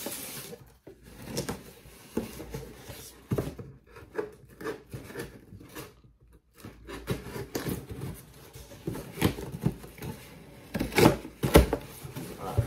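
A small knife slitting the packing tape on a cardboard shipping box, with irregular scraping and short sharp clicks of blade and cardboard. The loudest cardboard noises come about eleven seconds in, as the box is worked open.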